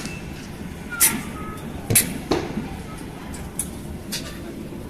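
Steady low hum of a parked airliner's cabin, broken by several sharp clicks and knocks, with faint voices.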